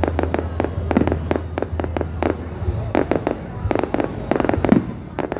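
Fireworks going off in quick succession: an irregular string of sharp bangs and crackles, several a second.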